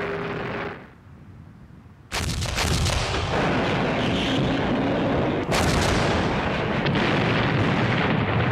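Heavy artillery guns firing. A first loud report about two seconds in, then further shots about five and a half and seven seconds in, with the rumble of the blasts carrying on between them. A steady hum stops within the first second.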